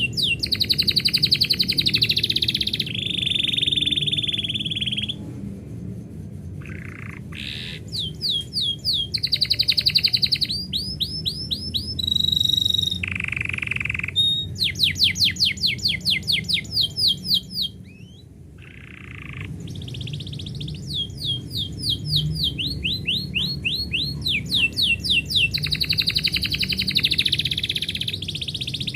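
Domestic canary singing: phrase after phrase of rapid repeated sweeping notes and held rolling trills, each phrase a second or two long with short pauses between, over a low steady background rumble.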